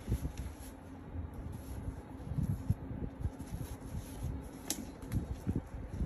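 Hands handling a Babyzen YOYO 2 stroller's fabric seat pad and straps against its frame: irregular soft knocks and rustling, with one sharp click a little under five seconds in. A steady low hum runs underneath.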